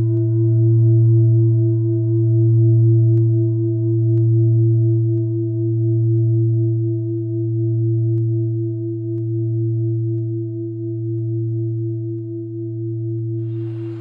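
A deep, ringing metallic drone, singing-bowl-like, with a slow wavering pulse about every two seconds and a few higher overtones, fading gradually. Near the end a hiss of background noise comes in underneath it.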